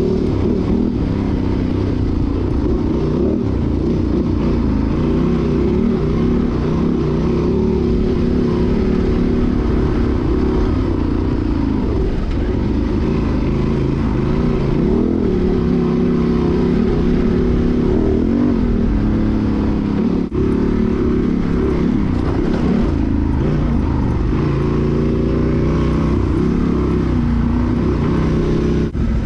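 Honda Transalp XL750's parallel-twin engine running through a Mivv Dakar exhaust with an Arrow decat pipe, revving up and down as the bike is ridden offroad. Its pitch keeps rising and falling with the throttle, with a brief drop about 20 seconds in and another near the end.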